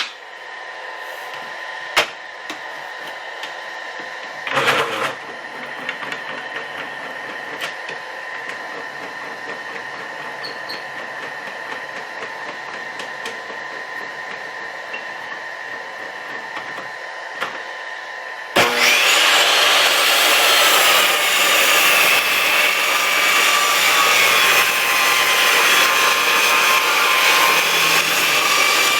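Table saw running with a steady whine and a few light knocks. About two-thirds of the way in, the blade bites into wood and the sound turns suddenly loud and rough, with a wavering pitch, as it rips a thin strip.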